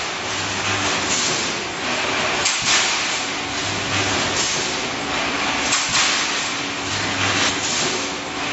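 Automatic rebar mesh welding machine running through its cycle: a steady hiss with a low hum that comes and goes, and a sharp double clack about every three seconds.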